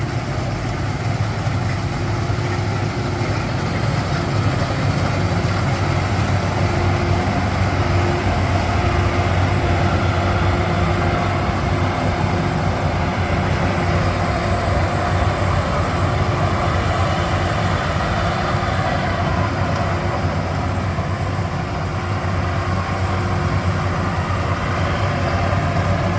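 Rice combine harvester running steadily under load, its engine giving a constant low hum, with a high-pitched tone that comes and goes.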